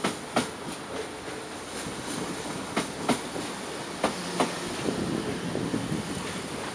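Deutsche Bahn ICE train rolling slowly over a rail joint: the wheels give double clicks, one pair per bogie, three pairs a second or more apart, over the steady rumble of the running gear.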